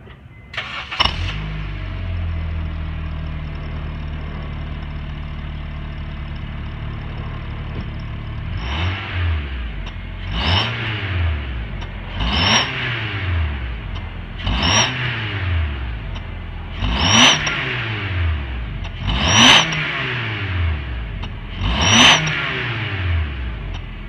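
An 8th-generation Honda Civic starts with a short crank about a second in and settles to a steady idle. From about nine seconds it is revved seven times, roughly every two seconds, each rev rising and falling. A high whistle from a turbo whistler fitted in the exhaust tip rises with each rev.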